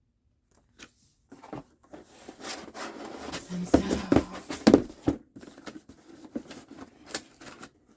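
A cardboard laptop box and its packaging being handled: rubbing, rustling and clicks, with a few sharp knocks about four seconds in.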